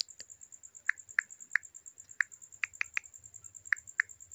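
Smartphone on-screen keyboard key-press clicks, about ten short taps at an uneven pace as a search word is typed.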